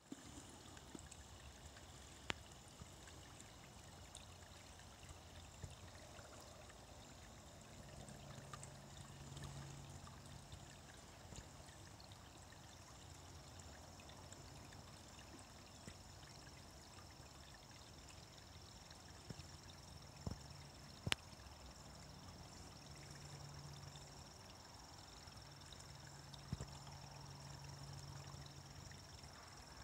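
Small stream trickling faintly.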